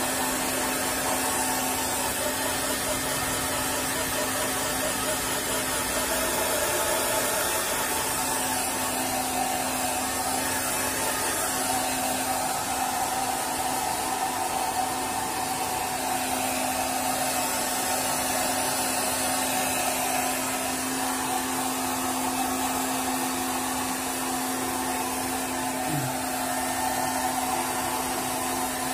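Handheld electric hair dryer running steadily, blowing air onto a wet cat's fur, with a steady motor hum under the rush of air.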